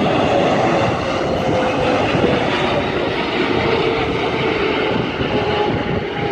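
Boeing 777 jet engines passing low on landing, a loud steady rushing noise with a whine that slowly falls in pitch.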